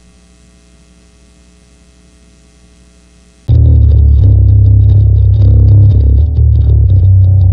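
Beatdown hardcore song intro: a quiet steady hum for the first few seconds, then heavily distorted guitars and bass come in loud and sudden about three and a half seconds in, playing a fast chugging rhythm.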